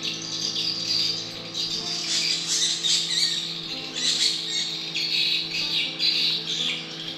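Birds calling in the mangroves, a dense chirping chorus with repeated squawks, over a faint steady low hum.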